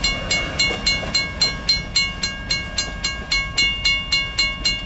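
Railroad grade-crossing bell ringing steadily, about three to four strikes a second, over the low rumble of a freight train rolling past.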